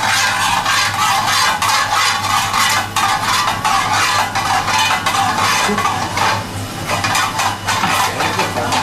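A crushed garlic clove frying in a thin film of hot extra-virgin olive oil in an aluminium frying pan, sizzling and crackling steadily. A low hum runs underneath.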